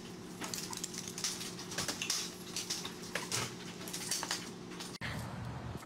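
Small dogs' claws clicking and scrabbling irregularly on a tile floor as they wrestle and spin, over a steady low hum. It cuts off about five seconds in.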